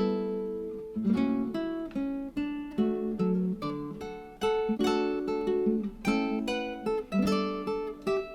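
Background music on acoustic guitar: chords strummed and plucked about once a second, each ringing out and fading.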